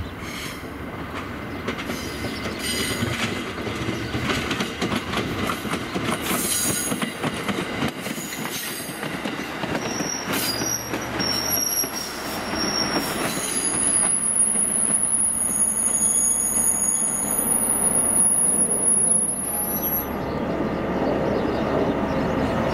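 A diesel track geometry car rolls over subway track, its wheels clattering over the rails and switches. About halfway in, high-pitched wheel squeal sets in and holds for several seconds as the car gets louder and closer.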